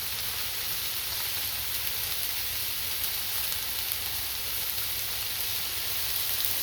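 Chicken, onions and bell peppers sizzling on a 22-inch Blackstone propane griddle: a steady frying hiss with a few faint crackles.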